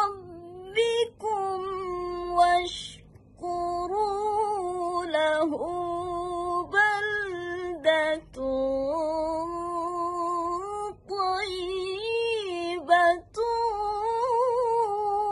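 A woman reciting the Qur'an in the melodic tilawah style, her voice unaccompanied. She holds long notes with wavering, ornamented turns and breaks off several times for short breaths.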